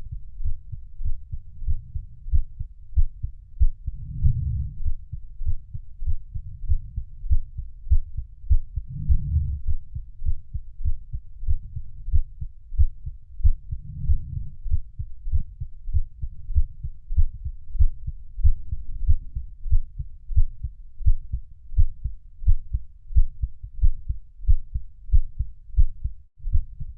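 Heartbeat sound playing as a steady rhythm of low, muffled thumps. A deeper swell rises and fades about every five seconds.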